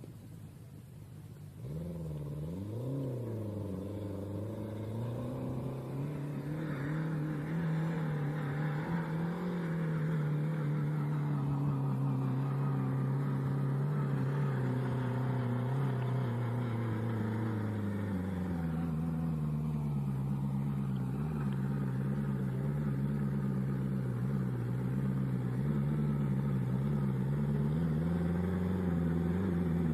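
Homemade off-road buggy's 1600 cc turbocharged engine running under load. It revs up sharply about two seconds in and rises and falls a few times, then holds a fairly steady pitch with slow swells as it works its way up the terrain.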